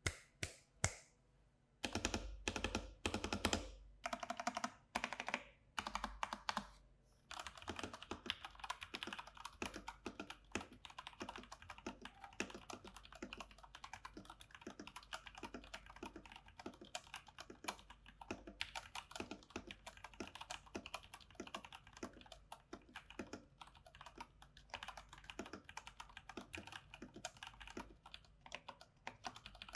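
IQUNIX mechanical keyboards being typed on. For the first few seconds keys are struck in separate strokes and short runs, then after a brief pause comes fast, continuous typing. The sound passes from the OG80 DarkSide with TTC Gold Pink switches to the L80 Christmas with Cherry MX Brown switches.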